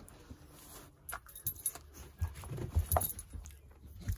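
Aluminium foil burrito wrapper crinkling in the hands, with soft knocks and rubbing of handling. It grows busier and louder from about a second in.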